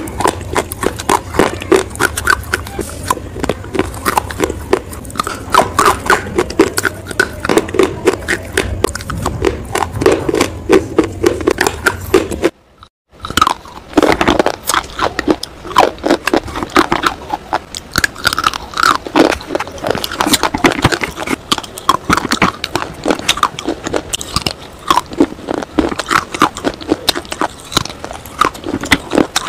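Close-up crunching bites and chewing of hard, chalky blocks: rapid dry crackles and crunches in quick succession, with a brief silence a little under halfway through.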